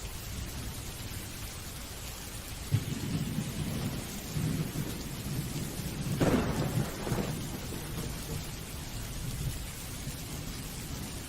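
Steady rain with a roll of thunder: a low rumble starts about a quarter of the way in, peaks with a sharper crack near the middle, and dies away a few seconds later.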